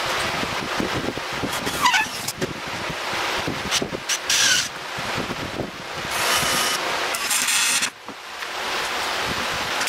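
Cordless drill running in short bursts, driving screws into 2x4 framing, over a steady rushing noise like wind on the microphone.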